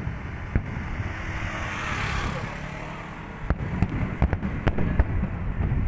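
Fireworks going off: a single sharp bang early, a hissing swell, then a quick run of five or so sharp bangs over the last couple of seconds, over a steady low rumble.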